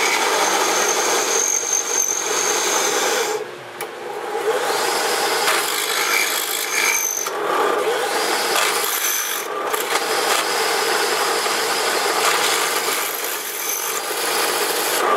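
Drill press boring a hole through metal, the oiled bit cutting with a steady grinding rasp and thin squeals, letting up briefly about three and a half seconds in and again near the ten-second mark.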